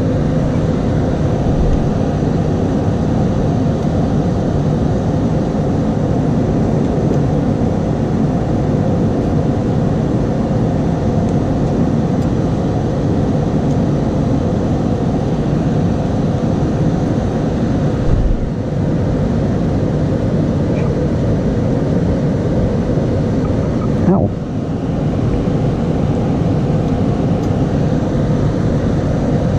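A steady, loud rumbling noise with no clear beat, dipping briefly about 18 seconds in and again about 24 seconds in.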